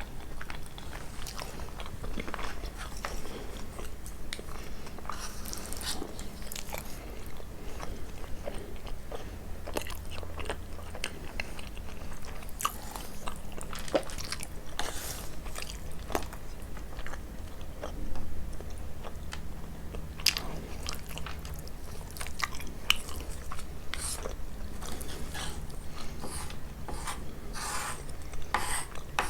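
Close-up chewing and biting of kunafa, the crisp shredded pastry with Nabulsi cheese, with many small crunches and crackles.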